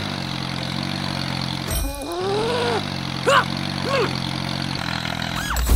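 An engine idling steadily, its low drone dropping out briefly about two seconds in and again at the end, with a few short tones over it that rise and fall.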